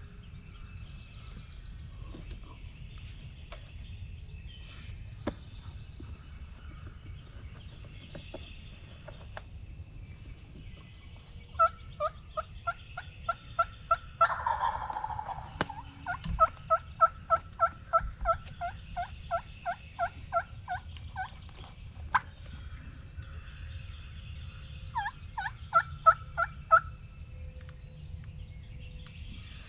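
Wild turkeys calling: runs of loud, evenly spaced turkey yelps, the longest at about four notes a second, with a rattling gobble breaking in between the first two runs. A short run of yelps comes near the end.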